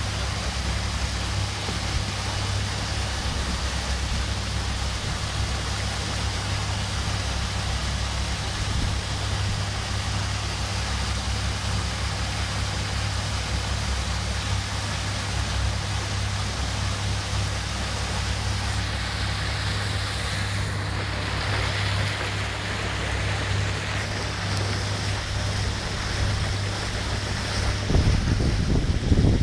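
Motorboat under way: a steady engine drone under the rush of wind and water, with wind buffeting the microphone more heavily near the end.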